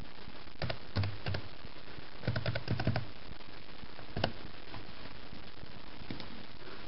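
Computer keyboard keys clicking as a word is typed: a few separate keystrokes, then a quick run of about six, then one more, over a steady hiss. A single fainter click near the end.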